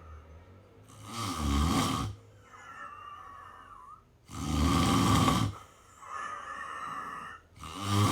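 A person snoring in sleep: three loud, fluttering snores about three seconds apart, with quieter breaths carrying a faint whistle between them.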